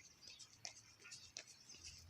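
Near silence, with faint, irregular high-pitched ticks and chirps scattered throughout.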